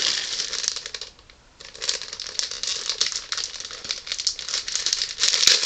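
A bag of grape marshmallows crinkling and rustling as hands work to open it, with a short pause about a second in.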